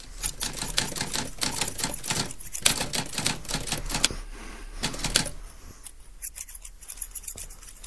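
Typewriter keys clacking in quick, irregular strokes, dense for the first five seconds or so, then sparser and fainter, over a low steady hum.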